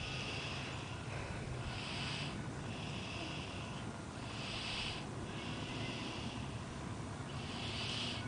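A sleeping toddler snoring in a slow, even rhythm, about one breath every three seconds. Each breath is a breathy, high-pitched rasp, with a shorter, stronger sound alternating with a longer, softer one.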